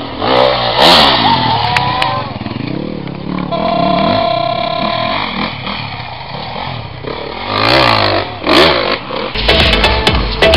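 Enduro dirt bike engines revving and accelerating on a dirt hill climb, the pitch rising and falling as the riders work the throttle. Near the end, electronic music with a steady beat comes in.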